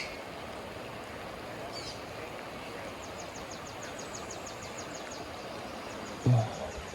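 Soft steady outdoor background hiss, with a bird singing a rapid trill of short high notes, about six a second, through the middle few seconds. A brief low sound near the end.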